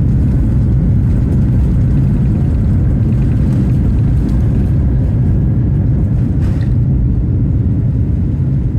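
Rolls-Royce Trent 1000 jet engines of a departing Boeing 787-9, heard as a loud, steady low rumble.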